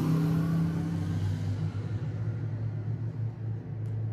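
A steady low rumbling hum that slowly grows fainter.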